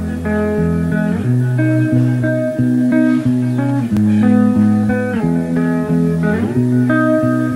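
Background instrumental music with guitar: plucked notes over a steady bass line, with pitch slides about a second in and near the end.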